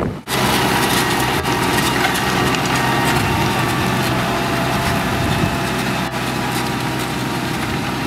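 Case IH 230 CVX tractor's six-cylinder diesel engine running steadily under load while pulling a five-furrow reversible plough. The sound cuts in abruptly a moment in.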